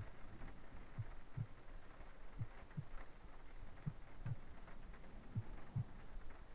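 Slow heartbeat heard close up: a soft, low double thump (lub-dub) about every second and a half.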